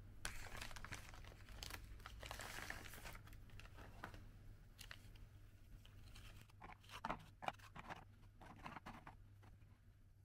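Foil snack bag crinkling as hands reach in and pull out pieces of batter-fried squid snack, then a handful of light clicks and taps as the crisp pieces are set down on a plate.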